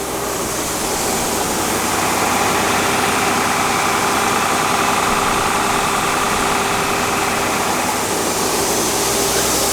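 Farm machinery running steadily at the grain-unloading and drying setup: an even engine-like hum, with a steady tone that settles in about two seconds in.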